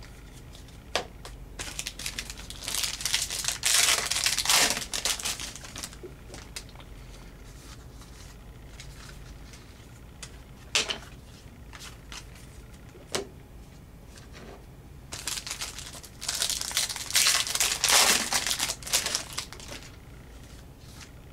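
Hockey trading cards being handled and flipped through by hand: two spells of rustling and crinkling, with a few sharp taps in between.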